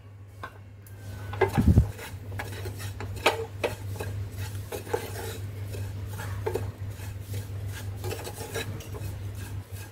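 Wooden spatula stirring and scraping a dry mix of desiccated coconut, milk powder and sugar around a non-stick pan, in many short strokes. A louder low thump comes about a second and a half in, over a steady low hum.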